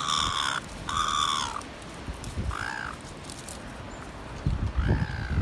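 Seagulls calling: two long harsh calls at the start, a shorter call about two and a half seconds in, and another near the end. A low rumble of thumps comes in near the end.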